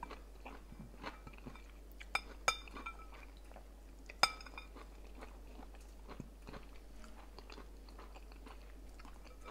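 Close-up eating sounds: steady chewing with small mouth clicks. A spoon clinks against a glass bowl three times in the first half, the loudest clink about four seconds in.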